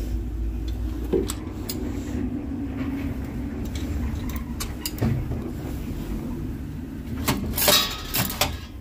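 Metal coin slide of a coin-operated card vending machine being handled, giving scattered clicks and knocks, then a louder clattering rattle near the end as it is pushed in. A steady low hum runs underneath.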